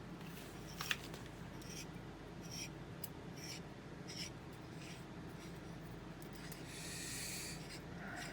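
Faint, irregular rubbing and scraping strokes on a metal bench vise as it is cleaned by hand, about one or two strokes a second, with a longer hiss lasting about a second near the end.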